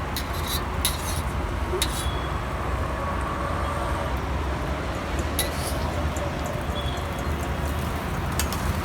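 Roadside street-food stall ambience: a steady low traffic rumble with a few sharp metal clinks of cooking utensils scattered through it.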